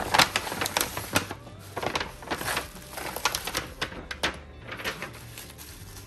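A package being handled and opened by hand: an irregular run of crackles and rustles from the packaging, thinning out near the end.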